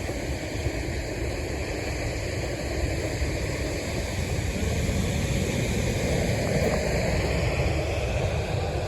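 Steady rush of a large waterfall, with wind buffeting the microphone; it grows a little louder about halfway through.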